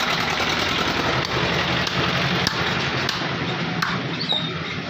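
Meat cleaver chopping mutton on a wooden stump block: a run of sharp knocks roughly every half second, over steady background noise and hum.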